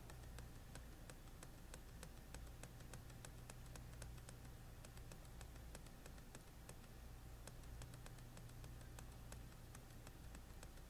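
Faint, fairly regular clicking of scrolling down a list on a computer, several clicks a second, over a low steady electrical hum.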